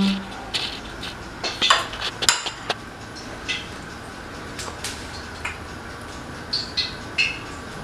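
A metal spoon clinking against a ceramic bowl several times as a spoonful of liver stew is scooped up, the sharpest clinks in the first three seconds, then a few fainter scattered clicks.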